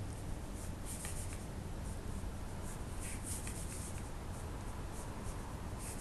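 Pen scratching across paper in short, irregular strokes, inking lines of a hand sketch, over a steady low hum.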